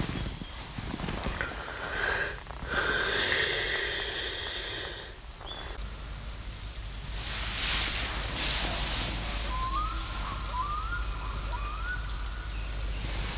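Fabric rustling and shuffling as someone moves about inside a tent. Near the end a bird gives three short rising calls.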